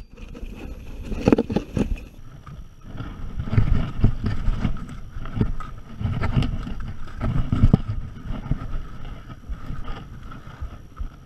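Dirt bike engine running with uneven bursts of throttle, lugging through deep ruts, with wind rumbling on the microphone.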